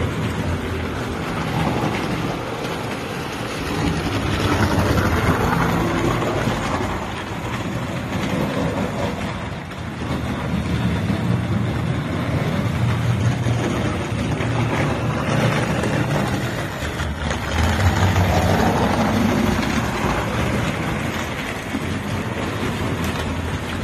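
American Flyer S-gauge model trains running on the layout: a steady whir and rumble from the locomotive motors and wheels on the track, with a low hum, swelling louder a few times as trains pass close by.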